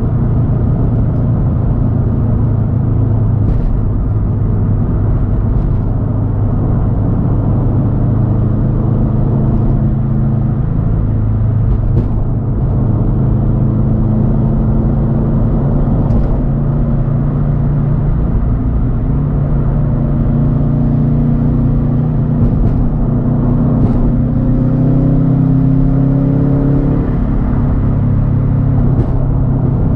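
2013 Subaru WRX STI's turbocharged 2.5-litre flat-four running loud through a Tomei Expreme Ti titanium exhaust while driving, its pitch shifting with speed and climbing for several seconds past the middle before dropping near the end. A few short sharp clicks along the way.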